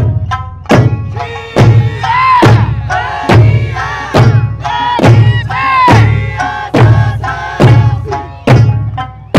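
Eisa performance: large Okinawan barrel drums (ōdaiko) struck together in a steady beat of about one heavy stroke a second. The drumming rides over Okinawan folk music of plucked sanshin notes and a sung melody.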